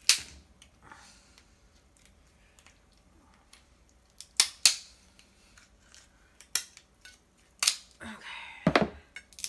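Kitchen shears cutting through snow crab leg shells: a series of sharp snips and cracks a few seconds apart, the loudest at the very start.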